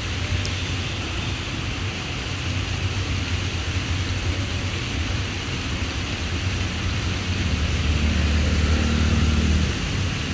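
Steady low outdoor rumble under a faint hiss. It swells louder for a couple of seconds, from about seven seconds in, with a low hum in it.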